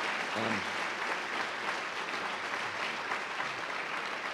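Large audience applauding steadily, a dense clatter of many hands clapping.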